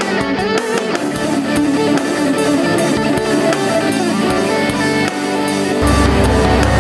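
Background music led by a strummed electric guitar. Near the end a low, steady rumble comes in underneath it.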